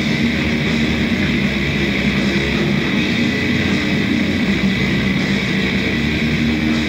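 Black metal band rehearsal recording: distorted electric guitars playing a dense, steady wall of sound at full volume.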